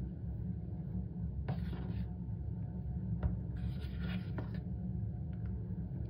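Metal spoon scraping and scooping through dry cornstarch: two strokes of about half a second and a second, with a couple of sharp clicks from the spoon.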